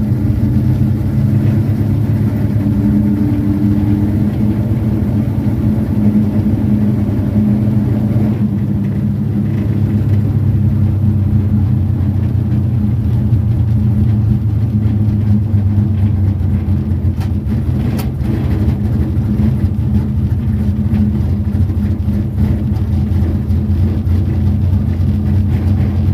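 Car's high-compression carbureted engine running steadily at one speed, without revving up or down.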